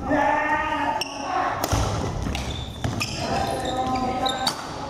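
A badminton doubles rally on a wooden gym floor: rackets strike the shuttlecock sharply several times, with thudding footsteps and squeaking shoes as the players move and lunge. The hall gives it a roomy sound.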